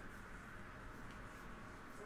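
Faint soft ticks and slides of football trading cards being thumbed off a stack by hand, over a steady low hum.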